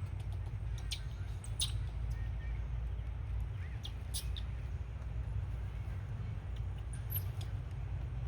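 Several short, high-pitched chirps, scattered singly and in pairs, over a steady low rumble.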